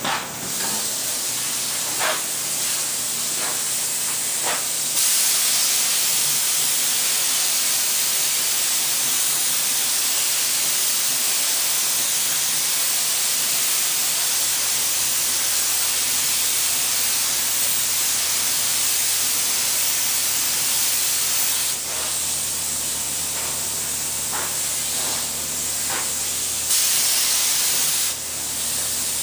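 A sprayer hisses steadily as it sprays sanding sealer onto wooden table parts. The spray is heaviest through the middle, eases briefly, then comes on again near the end. A few short clicks come a few seconds in and again near the end.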